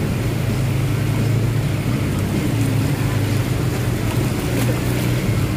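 Vehicle engine running steadily at low revs, a continuous low hum under a steady hiss.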